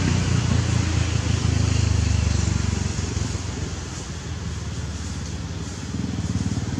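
Low rumbling noise, loudest in the first couple of seconds, easing off, then rising again near the end.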